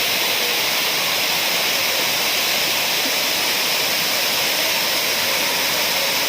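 A waterfall cascading over rocks: a steady, unbroken rush of falling water, heaviest in its high hiss.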